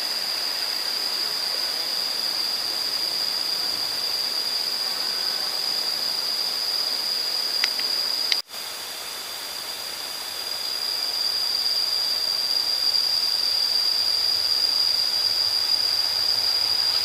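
Insects keep up a steady high-pitched drone. Two short clicks come about eight seconds in, then a brief break in the sound. From about ten seconds in, the low rumble of an approaching diesel-hauled passenger train grows louder.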